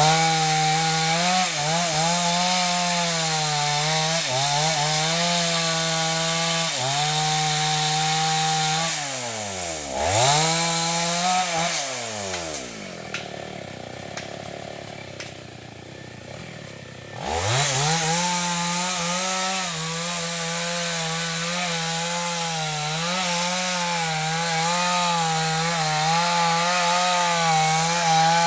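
Two-stroke chainsaw run at full throttle while cutting wood, its pitch dipping now and then under load. About halfway through it drops back to a quieter idle for a few seconds, then revs up again and keeps cutting.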